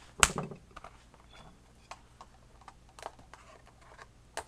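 A sharp knock on a wooden tabletop about a quarter second in, then light clicks and taps of a clear plastic box being handled, with another sharp click near the end.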